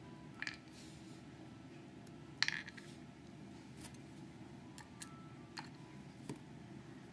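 Small metal lock pins from a Schlage Primus plug dropping out and clicking onto a hard surface as they are dumped, a handful of light, separate metallic clicks, the loudest about two and a half seconds in.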